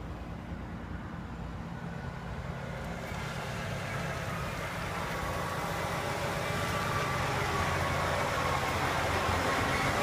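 Steady low engine rumble with a rush of vehicle and traffic noise that swells steadily louder from a few seconds in.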